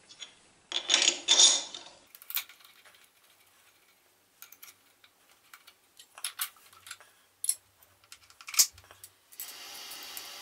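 Small steel tooling being handled and fitted onto a milling machine's spindle nose: a short clatter, then scattered light metallic clicks and taps. A steady hum starts near the end.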